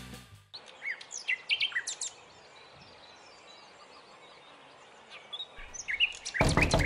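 Birds chirping in short, scattered calls over a faint steady outdoor background. Near the end comes a quick run of loud knocks on a door.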